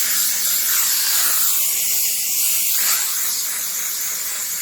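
Compressed-air blow gun nozzle hissing steadily as air from a shop compressor is blown over a person's body and clothes, with the pitch of the hiss briefly shifting about halfway through.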